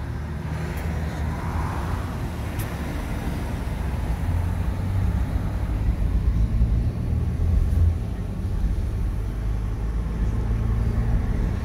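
Road and engine noise heard inside a moving car's cabin: a steady low rumble that grows a little louder in the middle.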